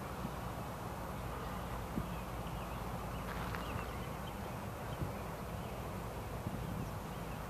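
Steady low rumble of a distant diesel locomotive, with birds chirping faintly now and then.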